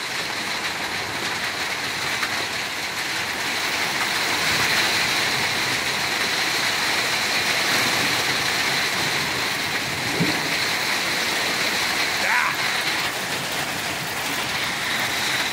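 Torrential rain pouring down in a steady, very loud hiss: a monsoon-like downpour.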